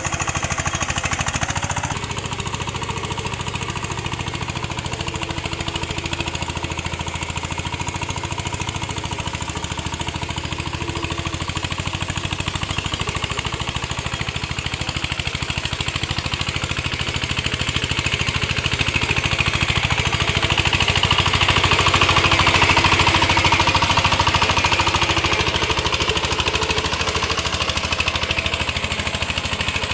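VST power tiller's engine running with a steady, rapid chugging beat, growing somewhat louder for several seconds past the middle.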